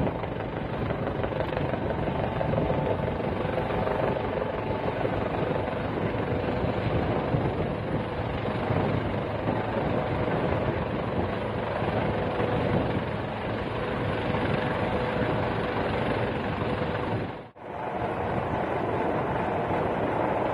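Helicopter running steadily, a loud even rotor and engine noise with a faint steady whine, cut off for an instant about three quarters of the way through.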